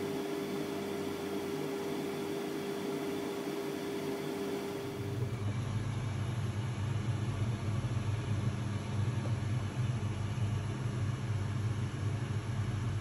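Steady mechanical hum with a held mid-pitched tone and hiss; about five seconds in it changes abruptly to a louder, deeper rumbling hum.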